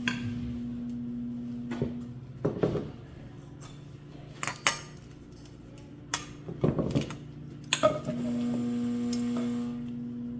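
Bowls and utensils clinking and knocking in a series of separate strikes as drained sliced cucumbers and red onion are moved into another bowl, over the steady hum of a running microwave that grows louder near the end.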